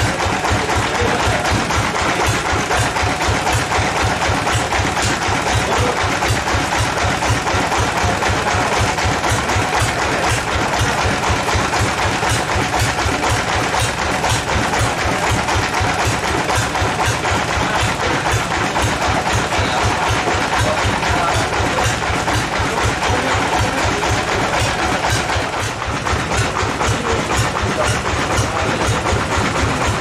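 Sawmill band saw and the engine driving it running steadily: a fast, even engine beat under a continuous hiss, as a large log is fed through on the saw carriage.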